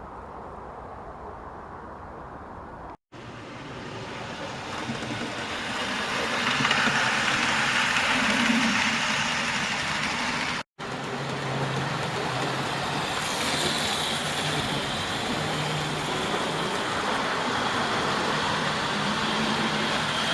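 Road traffic: a vehicle's rush of tyre and engine noise swells and fades, then a steady rush of traffic with a low engine hum.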